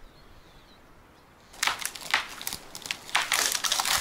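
Dry grass and twigs crunching and crackling in uneven bursts close to the microphone, starting about one and a half seconds in, the way dead vegetation sounds when crushed underfoot.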